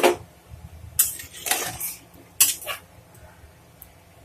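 Aluminium pressure cooker being handled: a sharp metal clank, then about four more knocks and a scrape over the next three seconds.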